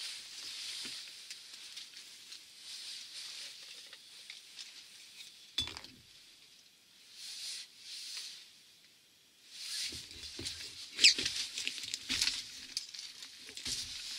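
Handling noises: a padded jacket rustling and light clinks and knocks of small metal gear. There is a sharp click about five and a half seconds in, a quieter spell after it, and a busier run of clinks and rustles over the last four seconds.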